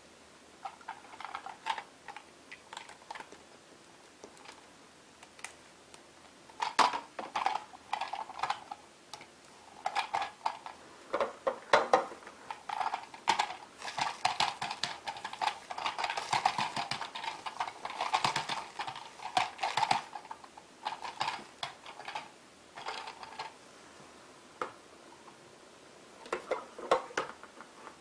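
Plastic parts of a toy vacuum cleaner being handled: its hollow plastic wand tubes and nozzle fittings clicking, tapping and rattling as they are pushed together. The clicks are irregular, sparse at first, busiest for several seconds in the middle, then thinning out again near the end.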